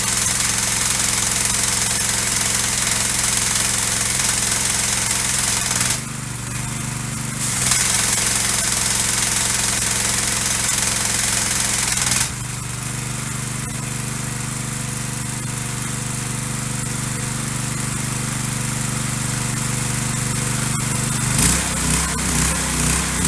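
Gas pressure washer with a Honda engine running at a steady note under a loud hiss of water spray. The hiss drops away briefly about six seconds in and falls back again about twelve seconds in. Near the end the sound starts to pulse about twice a second.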